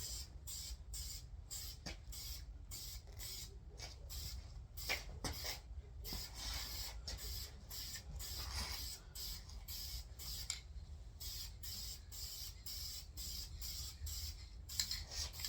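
Aerosol spray can hissing in many short, quick bursts as primer is sprayed onto an engine block.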